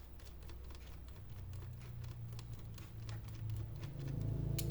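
Quick, light clicks and taps of a screwdriver working the screws of a laptop's plastic bottom case. A low hum grows louder near the end.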